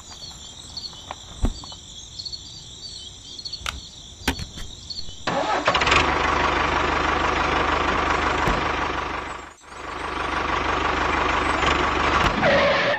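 Light clicks and a high wavering tone, then from about five and a half seconds a steady tractor engine running noise, dropping out briefly near ten seconds.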